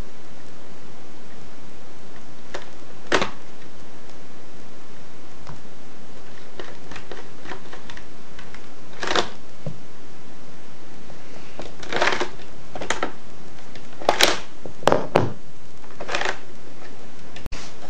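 Lego rifle being handled: scattered sharp plastic clicks and clacks, a few spread out and then a quicker cluster over several seconds, over a steady background hiss.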